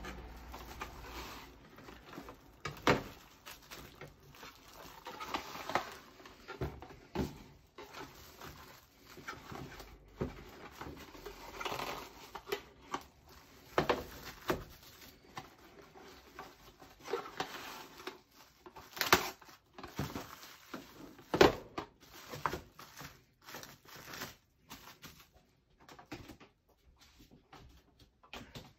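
Plastic cling wrap being pulled from its box and crinkled as it is stretched and pressed over a metal tray, with scattered rustling and irregular sharp clicks and knocks.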